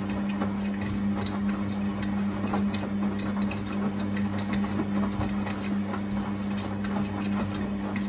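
Arçelik 7103 Y front-loading washing machine with its drum turning fast through the wash water: a steady motor hum with water sloshing and clothes clicking and slapping in the drum.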